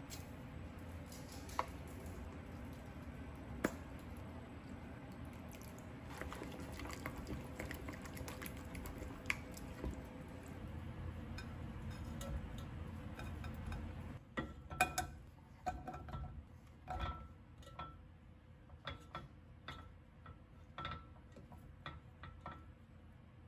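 Utensils and dishes clinking and tapping, scattered light knocks at first over a steady low background noise. About fourteen seconds in, the background drops away and the clinks come more often.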